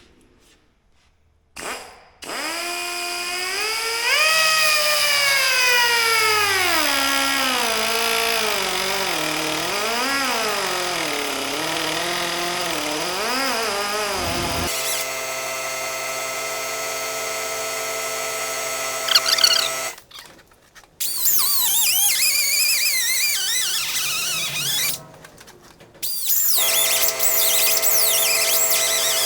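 Die grinder with a Norton wheel trimming a windscreen along its trim line. It starts about two seconds in with a whine that sags and wavers in pitch as the wheel bites, then runs steadily. It stops briefly twice near the end and starts again each time.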